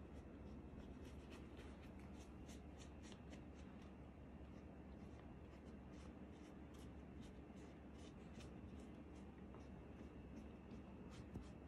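Faint scratchy strokes of a paintbrush dabbing paint onto a crumpled-newspaper volcano model. The strokes are irregular, a few a second, thinning out in the second half, over a low steady room hum.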